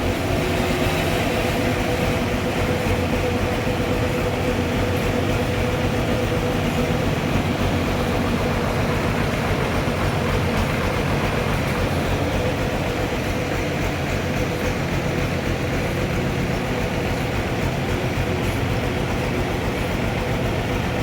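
Sawmill machinery running steadily: a continuous loud mechanical drone with a fast low pulsing and a steady pitched hum.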